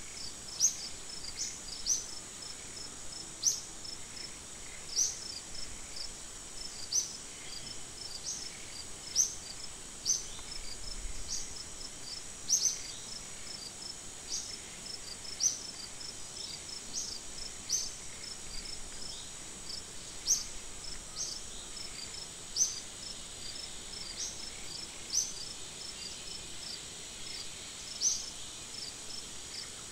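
Outdoor insect chorus: a steady high-pitched drone with a faint rapid pulsing, cut by short, sharp high chirps that repeat every one to two seconds.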